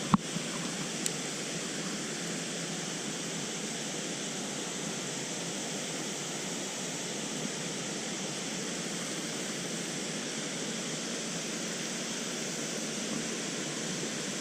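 Steady rushing of a flowing stream, with a sharp click just after the start and a fainter one about a second in.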